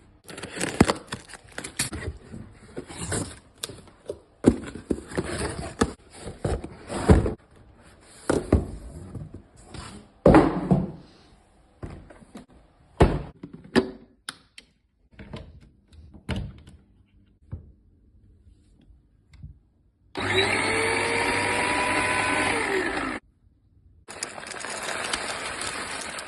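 Bodum electric coffee grinder: a run of knocks and clatters as it is handled, then its motor spins up and runs steadily for about three seconds. Near the end it starts again for a second run.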